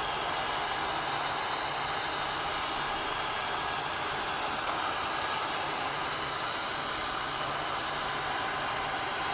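Roidmi Eve robot vacuum's suction motor running steadily: an even whirring rush with a faint low hum underneath.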